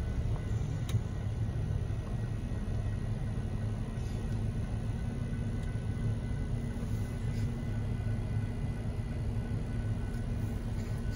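Steady low rumble of an idling car engine, heard from inside the car's cabin.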